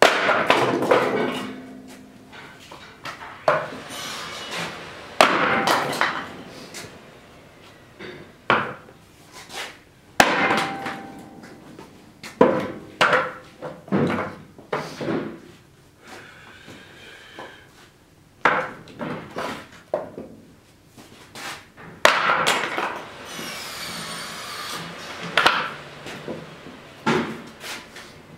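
Wood being split by hand on a chopping stand, likely a blank for an axe handle: over a dozen sharp, hard blows at irregular intervals, several followed by the crack of splitting wood and pieces knocking down onto the stand. There are short squeaky creaks about halfway through and again shortly before the end.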